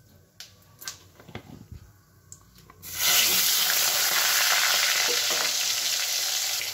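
A few faint clicks, then about three seconds in raw potato pieces go into hot oil in a kadai and it starts sizzling loudly and suddenly, a steady frying hiss that eases only slightly.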